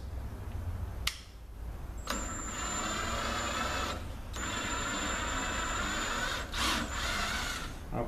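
Cordless drill running in reverse, in two steady whines of about two seconds each with a short pause between, backing a reamer out of the freshly reamed AFL valve bore in a 4L80E aluminium valve body. A single click comes about a second in.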